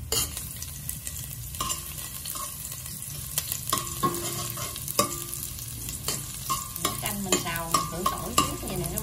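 Minced garlic sizzling in hot oil in a stainless steel stockpot while a metal ladle stirs it, clinking and scraping against the pot with short metallic rings. The garlic is frying toward golden.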